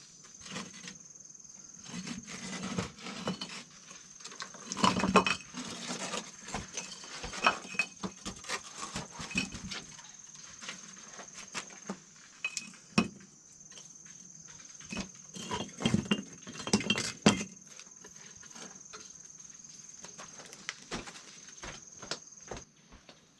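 Irregular taps, knocks and clinks of objects being handled, in two busier clusters about five and sixteen seconds in, over a steady high-pitched tone.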